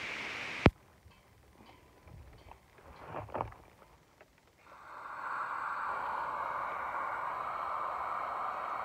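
Propane weed-burner torch: a loud sharp click near the start, then a few seconds of light clicks and handling knocks, then about halfway through the torch starts running with a steady rushing hiss.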